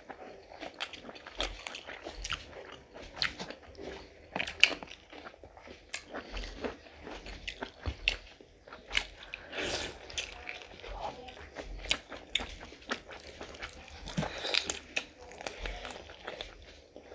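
Close-up eating sounds of two people eating rice and curry with their hands: wet chewing, lip smacks and crunching bites, with many irregular sharp clicks.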